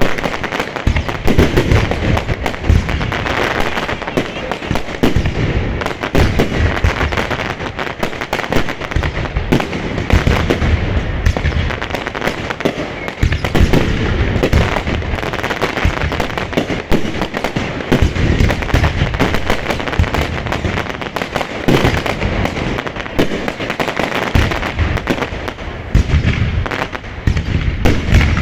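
Fireworks display going off without a break: many bangs and pops overlapping in a dense, continuous barrage.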